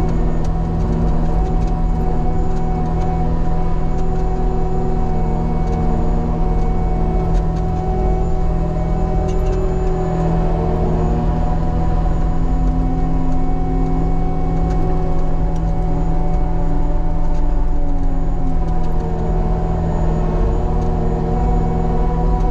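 Cat skid steer's diesel engine running steadily under load, heard from inside the cab, with a hydraulic whine that rises and falls in pitch as the grader blade is worked.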